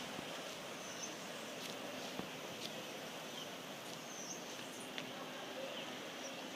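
Outdoor ambience: a steady background hiss with scattered short, high bird chirps and a few faint clicks.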